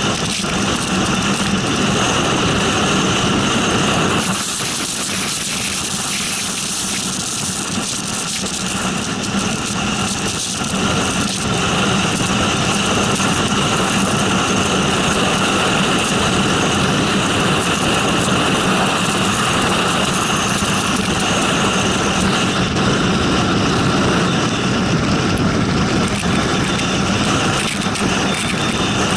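Steady engine and road noise from a car driving along a wet dirt road. It eases off for several seconds after about four seconds in, then holds steady again.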